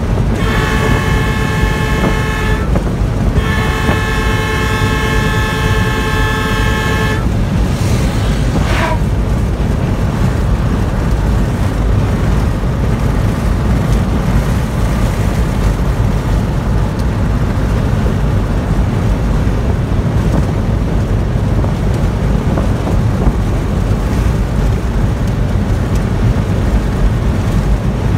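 Steady low rumble of a car driving on an open road, heard from inside the cabin. A car horn sounds two long blasts, the second about four seconds long. A brief falling tone follows about a second later.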